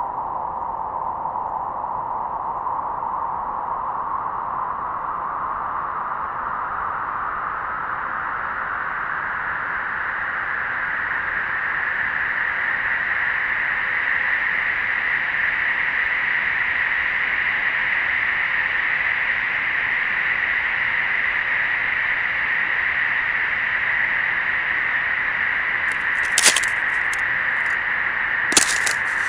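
Storm wind howling, its pitch slowly rising as it grows a little louder, then holding steady. Two sharp cracks near the end.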